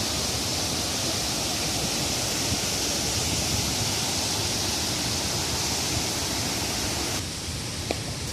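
Waterfall: a steady, dense rush of falling water that drops a little in level about seven seconds in.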